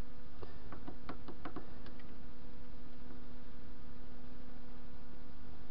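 A workpiece being fitted by hand into a lathe's three-jaw chuck, giving a few light metallic clicks and taps in the first couple of seconds. Under them runs a steady electrical hum.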